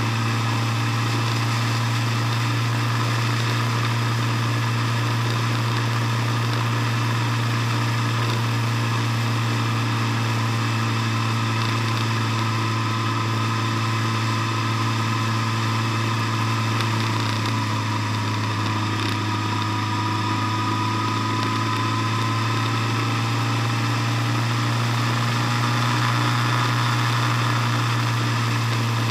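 Engine of a vehicle driving at a steady speed: a constant low hum with steady overtones, heard from a camera mounted on the vehicle. A faint whine rises slightly about two-thirds of the way through.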